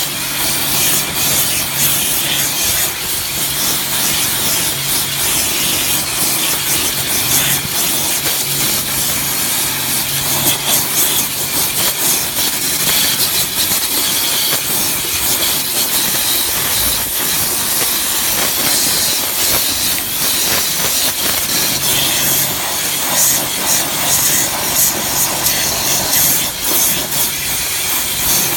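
High-pressure washer jet blasting old paint off IBR metal roof sheeting: a loud, steady hiss of spray on the sheets. The washer's low steady hum runs underneath, weaker through the middle and stronger again over the last third.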